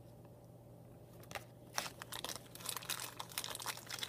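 Plastic bag crinkling and rustling as it is handled, in quick irregular crackles starting about a second in.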